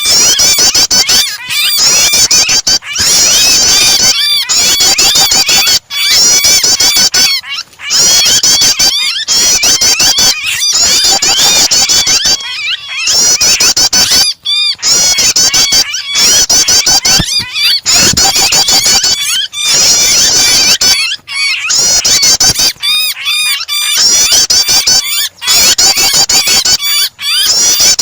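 Rapid, high-pitched prinia (prenjak) chirping mixed with the frantic squeals of a bird in distress, as in a songbird starter track. It comes in loud stretches of a second or two, broken by short pauses.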